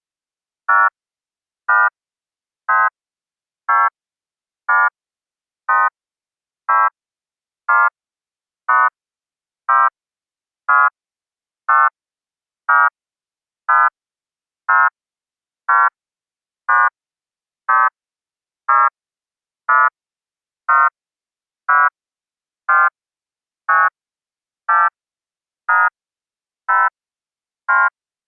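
A short buzzing electronic beep repeating evenly about once a second, each beep about a quarter second long, with silence between.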